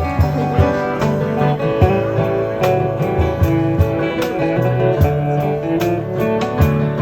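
Country band playing an instrumental break: strummed acoustic guitar with a guitar melody over bass notes and a steady beat.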